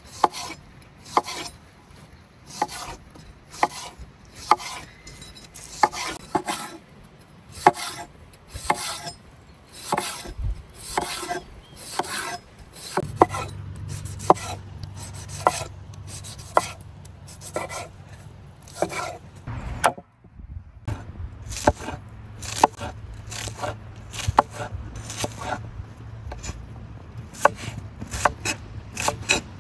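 Large knife chopping tomato and onion on a wooden cutting board: repeated sharp knocks of the blade through the vegetable onto the wood, about one or two a second, with a short break about two-thirds of the way through.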